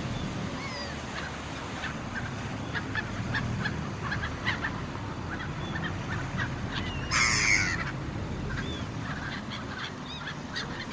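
Seagulls calling again and again in short cries over the steady low rumble of a ferry's engine and churning wake. A louder, harsher burst comes about seven seconds in.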